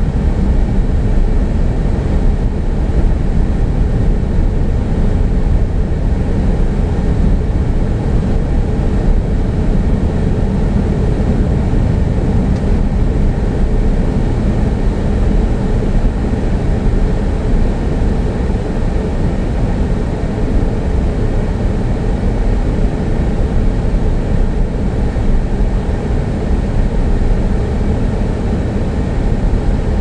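Steady low rumble of a car driving at speed, heard inside the cabin: tyre, road and engine noise.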